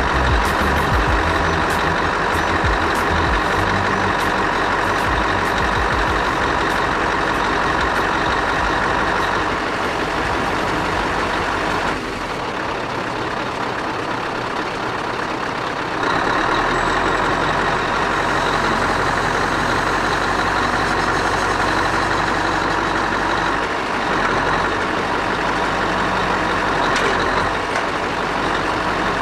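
Scania R500's V8 diesel engine running while it drives the hydraulic loader crane, a steady dense machine sound. It drops back for a few seconds midway, then picks up again.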